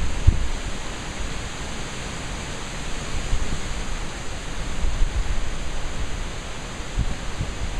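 Storm wind: uneven gusts buffeting the microphone with low thumps, over a steady rushing hiss.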